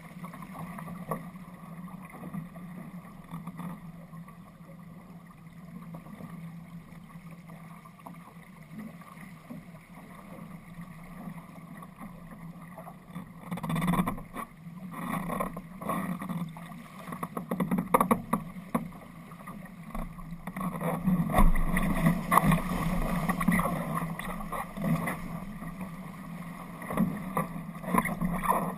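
Water rushing and splashing along the hull of an RS Aero sailing dinghy running downwind, steady at first, then louder from about halfway through with many sharp slaps of water.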